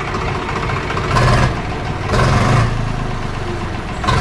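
Swaraj 735 FE tractor's three-cylinder diesel engine running with a knocking 'tak tak tak', getting louder in three short surges: about a second in, two seconds in and near the end. The mechanic takes the knock for a seized piston after the engine overheated and stalled.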